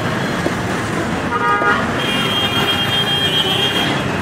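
Busy street traffic noise with vehicle horns: a short horn toot about a second and a half in, then a longer, higher-pitched horn held from about two seconds until near the end.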